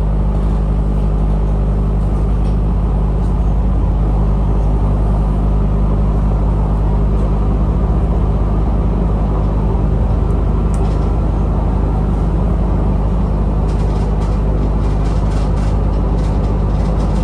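Diesel railcar running steadily, its engine drone and running noise heard from inside the car, with a few faint clicks near the end.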